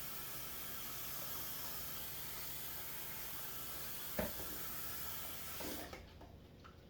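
Steady hiss of running water from a tap that is shut off sharply near the end. A single sharp knock about four seconds in, and a light clatter just before the water stops.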